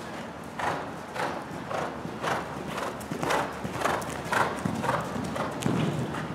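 Hoofbeats of a horse cantering on soft arena footing, a steady rhythm of about two strides a second.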